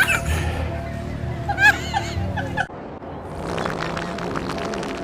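Background music with sustained low notes, broken off briefly under three seconds in, with a few short chirps and clicks laid over it.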